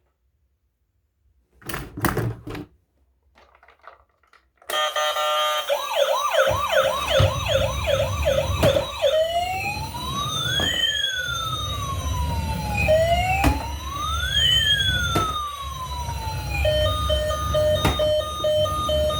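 Battery-powered toy emergency vehicle's electronic siren, switched on with a couple of clicks: first a fast repeating whoop, then slow rising and falling wails, then a rapid on-off beeping near the end, with a low rumble underneath.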